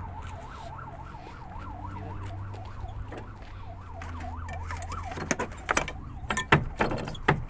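A warbling siren-like tone rising and falling about three times a second over a steady low hum, fading out about halfway through. Then several sharp knocks and clanks in the last couple of seconds.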